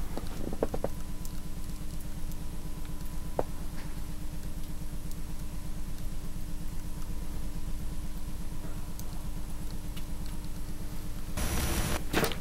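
A low, steady pulsing hum with a steady tone above it, like a running motor or a droning machine, broken near the end by a short burst of loud hiss like tape static.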